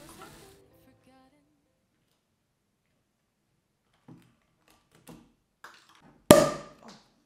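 Sparkling wine bottle being opened: a few soft clicks and rustles of the foil and wire cage, then the cork pops out loudly about six seconds in, with a short tail after the pop.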